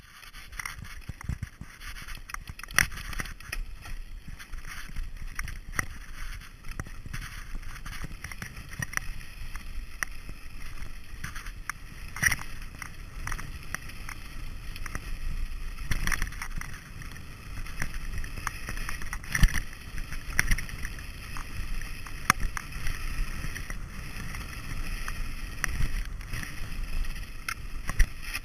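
Scott Genius LT mountain bike rolling over a rocky dirt trail: tyres crunching on loose stones with frequent sharp rattles and knocks from the bike, over a steady wind rumble on the microphone.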